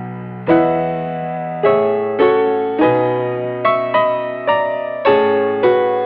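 Background music: a piano melody of struck notes, about one every half second, each fading away, over held low bass notes.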